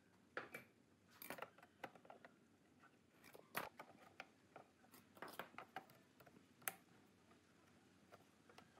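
Scattered light metallic clicks and scrapes of a screwdriver and long-nose pliers working screws out of a sheet-metal case, in irregular bursts, the sharpest clicks about three and a half seconds and seven seconds in.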